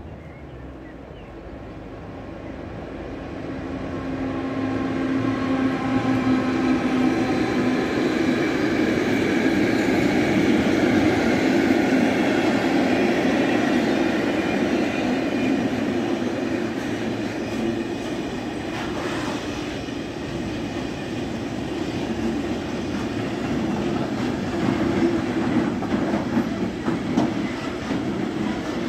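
Siemens Vectron MS electric locomotive and its container train approaching and passing, louder over the first few seconds. The locomotive's traction equipment gives a steady hum and whine as it goes by. It is followed by the long, even rumble of the container wagons rolling past, with a few sharp wheel knocks near the end.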